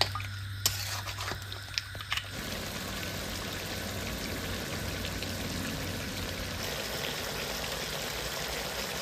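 Mutton frying over a high gas flame in an aluminium kadai, with a few scrapes and knocks of the spatula against the pan in the first two seconds, then a steady sizzle. This is the high-flame bhuna stage, the meat searing in oil with its spices.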